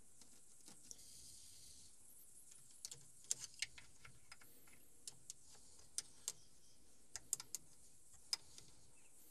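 Faint, irregular light clicks and ticks, about fifteen scattered through the stretch and bunched most closely in the middle, over a quiet background.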